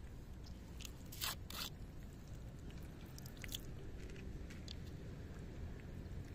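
Two cats eating canned cat food and dry kibble from a bowl, with irregular crunching and chewing sounds that cluster about a second in and again a little past the middle, over a steady low rumble.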